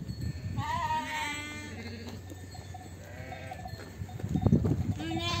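Sheep and lambs bleating: a long, high, wavering bleat about half a second in, a shorter, weaker call around three seconds, and another high bleat starting near the end. Under them is the low shuffling of the flock moving on dirt, with a louder burst of knocks and thumps about four and a half seconds in.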